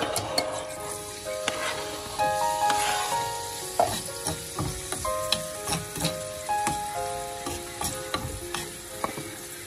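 Diced tomato and luncheon meat sizzling in hot oil in a frying pan, with a burst of sizzle as the food drops in at the start and a spatula scraping and clicking against the pan as it is stirred. Soft background music with stepping piano-like notes plays along.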